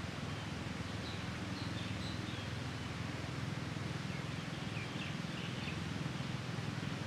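Steady outdoor background noise with a low rumble, and faint short bird chirps, first about a second in and again around five seconds in.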